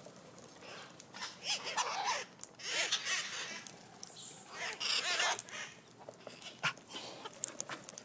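A flock of red-masked parakeets (cherry-headed conures) squawking with harsh, raspy calls in several bouts of a second or so each.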